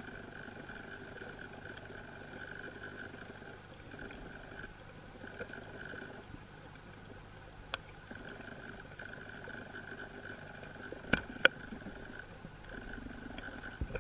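Underwater ambience: a steady low wash of water noise with a faint steady hum. There is a sharp click about eight seconds in and two loud clicks about eleven seconds in.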